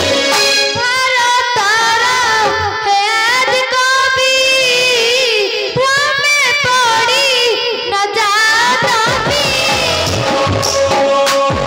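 Stage music with a high voice singing a wavering, ornamented melody over a steady held tone; the singing stops near the end, leaving the instruments playing.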